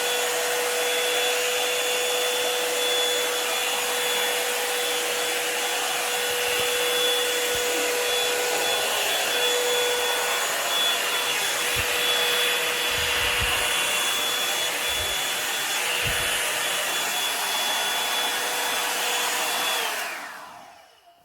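Revlon Salon One-Step hair dryer brush running steadily with a loud rush of air and a high motor whine. About a second before the end it is switched off and its motor winds down, falling in pitch.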